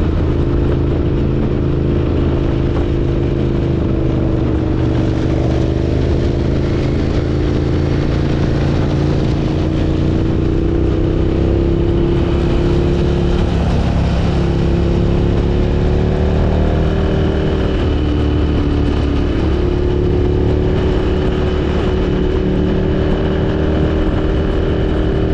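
Motorcycle engine running steadily at highway cruising speed, its pitch drifting gently up and down with the throttle, under a steady rush of wind and road noise. A faint high whine joins about halfway through.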